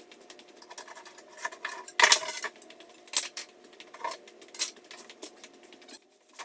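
Irregular light clattering, knocking and clicking as boards and tools are handled after a circular-saw cut, with one louder knock about two seconds in.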